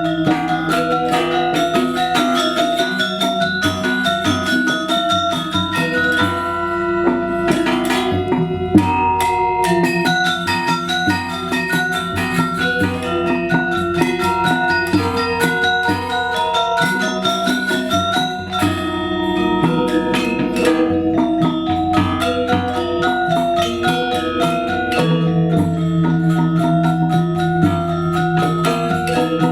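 Balinese gamelan music: tuned bronze metallophones playing a dense, continuous melody of rapid struck notes, with drums.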